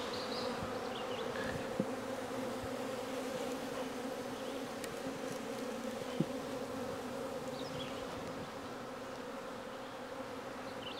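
Honey bees from an opened hive buzzing in a steady hum. Two light knocks come through it, the sharper one about six seconds in, as a hive tool works the wooden frames.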